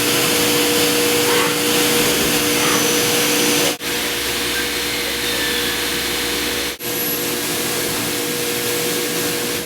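Shop machinery running loudly and steadily, a dense hiss with a steady hum, breaking off briefly twice.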